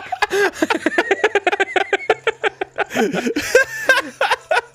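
Laughter: a person giggling in a rapid run of short peals, over a faint steady low hum.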